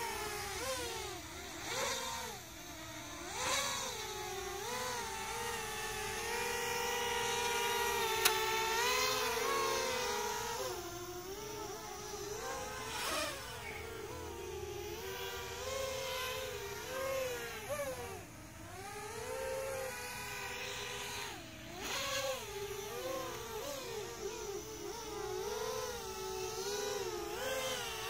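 XHover 230 FPV quadcopter's electric motors and propellers whining, the pitch rising and falling as the throttle changes.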